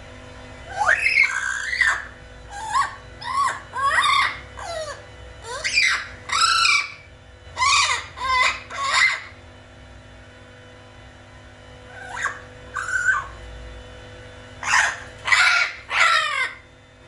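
Blue-fronted Amazon parrot squawking and screeching: a run of loud, short calls, a few seconds' pause, then a few more calls near the end.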